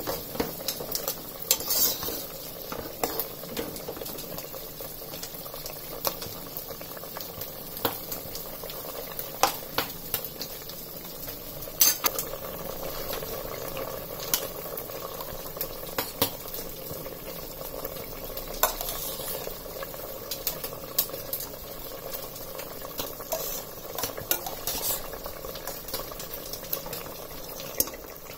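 Chicken biryani gravy boiling in a pot, bubbling steadily, while a steel ladle stirs it and clicks sharply against the pot now and then.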